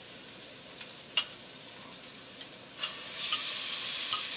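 Oil sizzling in a frying pan of garlic and onions as chicken breast pieces are put in. The sizzle gets louder about three seconds in, with a few light clicks of a utensil against the pan or bowl.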